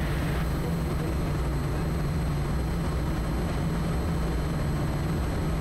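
Steady drone of a Quest Kodiak 100's PT6A turboprop engine and propeller as heard in the cockpit during the landing approach, an even low hum under a layer of rushing noise.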